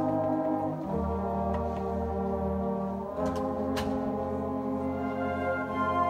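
School concert band playing sustained, brass-heavy chords, the harmony changing about a second in and again about three seconds in.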